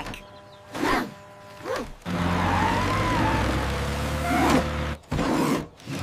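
Animated bulldozer sound effect: a steady low engine rumble that comes in about two seconds in, with a growling sound over it.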